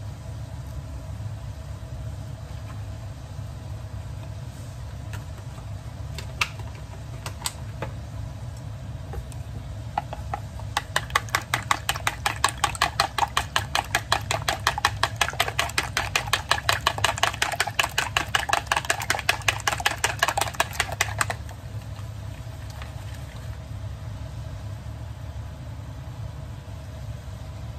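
Rapid, even clicking of a kitchen utensil against a dish, lasting about ten seconds from roughly eleven seconds in, over a steady low hum.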